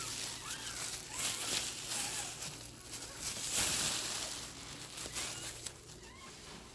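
Newborn puppies squeaking and whimpering in short, high cries that rise and fall, several over a few seconds, with rustling and shuffling as they crawl about.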